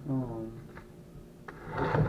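A short murmur from a man's voice, falling in pitch. Near the end comes a clatter and scrape as the plastic body of a battery chainsaw is turned around on a wooden table.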